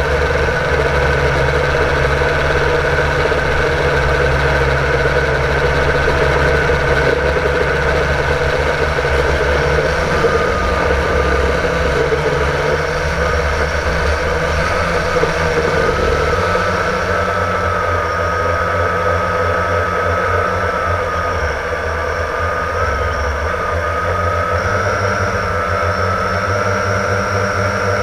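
Blade 350 QX quadcopter's motors and propellers whirring steadily, heard close up from the GoPro on board, with a high tone that wavers slightly in pitch as the motors adjust.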